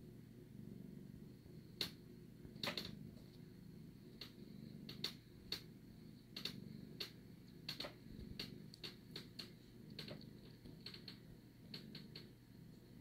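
Domestic cat purring softly, a low pulsing rumble, with sharp clicks scattered over it at irregular intervals.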